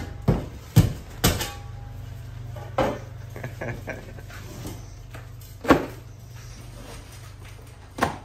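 Drywall being broken out of a wall with a long-handled tool: about six or seven irregular sharp knocks and cracks as the board is struck and pieces break away and drop. A steady low hum runs underneath.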